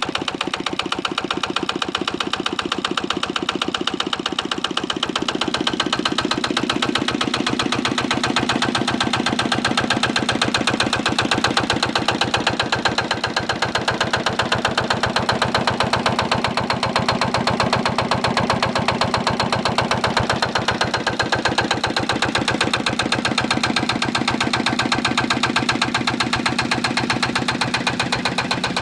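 A 1965 Lister LD1 single-cylinder diesel stationary engine, fitted with a reconditioned injector, running steadily with a rapid, even beat.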